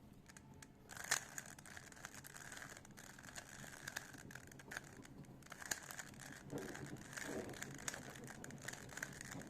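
A plastic 3x3 Rubik's-type cube being turned quickly by hand: a faint run of rapid clicks and clacks as the layers rotate, with one sharper click about a second in.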